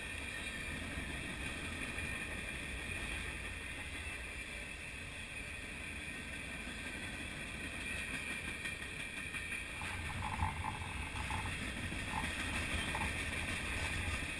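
Freight train of empty centerbeam flatcars and boxcars rolling past close by: a steady rumble and clatter of steel wheels on the rails with a high hiss over it. From about ten seconds in, a few short high squeaks from the wheels join in.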